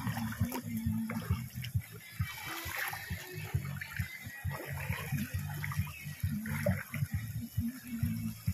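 Shallow river water rushing and splashing around men wading at a staked fish net, with scattered irregular splashes and knocks.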